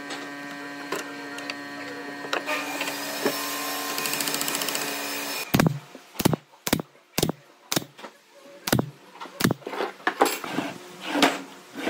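A steady motor hum for the first half, then a pneumatic brad nailer firing about ten sharp shots, one or two a second, driving brads into a wooden frame.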